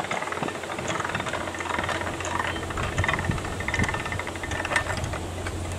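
Narrowboat diesel engine running steadily, with a low hum under a hiss of noise and a few faint clicks.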